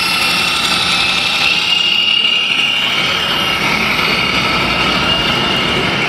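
A radio-controlled scale truck's sound module playing a diesel engine running steadily.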